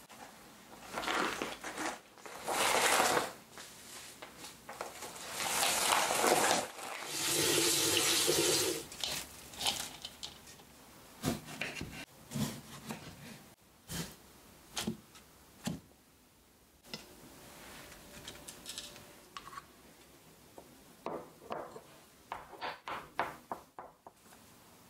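Kitchen tap running in two bursts of splashing water over the first several seconds. Then a knife taps sharply on a wooden cutting board as it slices cherry tomatoes. Near the end comes a run of small clicks: a wooden spoon stirring in a small ceramic dish.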